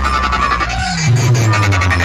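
Loud electronic dance music with heavy bass, played over a competition DJ sound system; a bass note slides downward about a second in.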